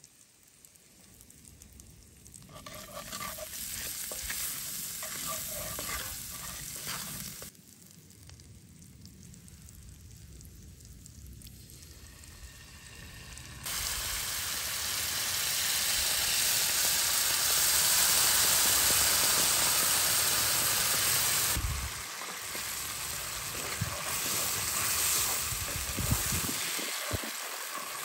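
Garlic sizzling in oil in a cast iron pan over hot coals, then a sudden loud hiss about halfway through as cream is poured into the hot pan, settling to a quieter sizzle while it is stirred with a cleaver, with a few light knocks near the end.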